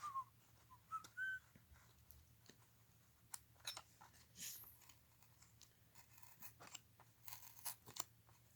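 Faint clicks and scrapes of a blade working under the paper label of a plastic 8-track tape cartridge. A few short high chirps come in the first second and a half.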